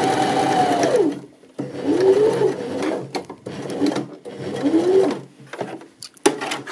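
Janome 725s sewing machine stitching a knit cuff onto a sleeve: the motor runs at a steady whine, slows to a stop about a second in, then runs in two short bursts that speed up and slow down as the seam is brought round to meet its start.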